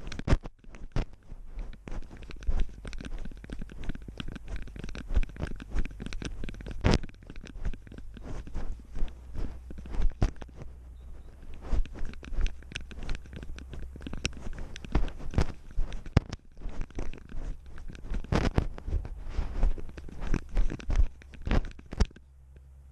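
A running cat's paws crunching and scratching on loose gravel, picked up at close range by a GoPro strapped to the cat. Rapid, irregular clicks and scrapes ride over the rubbing and knocking of the camera mount, and they stop abruptly near the end.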